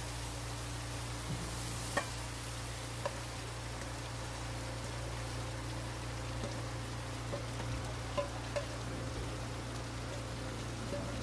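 A steady, even hiss with a low hum beneath it, broken by a few sharp clicks of the spatula against the nonstick wok and, later, a run of small taps as the wok is tipped over the plate to empty it.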